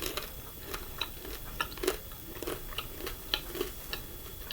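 Close-up chewing of crispy fried chicken gizzards: irregular crunches and mouth clicks, several a second.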